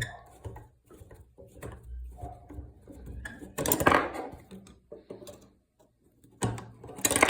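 Clicks, scrapes and light rattling of small metal typewriter parts being handled as a part is worked out of a Hammond 1 typewriter's carriage mechanism, with louder clatters about four seconds in and near the end.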